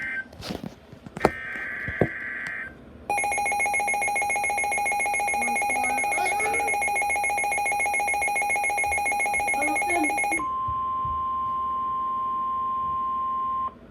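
Emergency alert tones for a severe thunderstorm warning. A few clicks and a short buzzy burst of the alert's digital header come first, then a loud, evenly pulsing electronic alarm for about seven seconds. It gives way to one steady pure warning tone that cuts off abruptly near the end.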